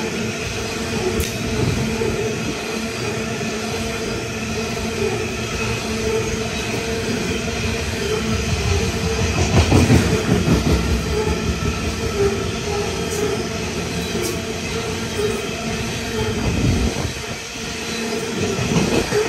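Coal train's hopper wagons rolling past: a steady rumble and roar of steel wheels on rail, with steady high wheel-squeal tones over it, swelling briefly about ten seconds in.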